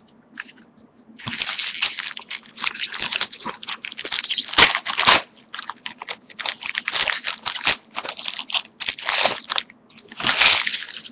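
Foil trading-card pack wrapper crinkling and crackling as it is handled and opened, starting about a second in with a couple of brief lulls.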